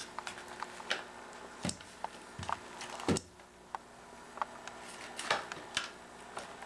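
Homemade aluminum-and-wood stilt boots stepping on carpet: a few soft thumps among scattered small clicks and knocks.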